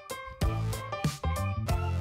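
Background music with a steady beat and a clear melody.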